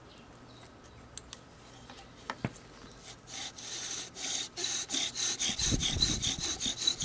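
Bow drill being worked: the bow saws rapidly back and forth, spinning the wooden spindle so that it rubs against the fireboard in a quick, even rasping rhythm to build a coal. The strokes start about three seconds in, after a few light knocks.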